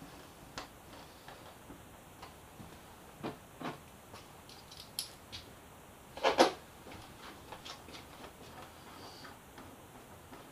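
Scattered light clicks and taps of a motorcycle's plastic fairing panels being pressed into place and fastened by hand, with a louder double knock about six seconds in.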